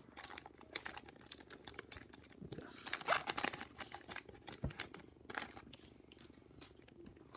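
Hockey trading cards being pulled from a freshly opened pack and flipped through by hand: a run of light clicks and paper rustles, thickest about three seconds in and thinning out towards the end.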